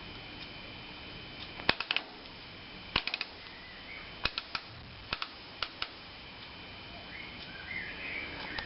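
Sharp clicks of the oscilloscope's rotary switches and knobs being turned, about a dozen irregular clicks, some in quick pairs and triples. A faint steady high tone runs underneath.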